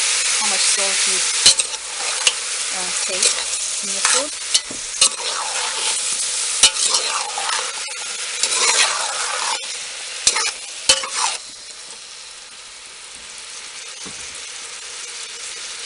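Sliced eggplant sizzling as it fries with onion and spices in a stainless-steel pot, while a metal spoon stirs it with repeated sharp clanks and scrapes against the pot. The stirring stops about eleven seconds in, and the sizzling goes on more quietly.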